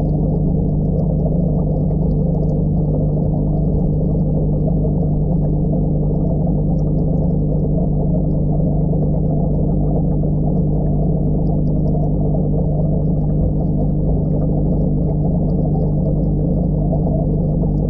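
Aquarium air pump and sponge filter bubbling, heard underwater in the tank: a dull rush of bubbles over a steady low hum.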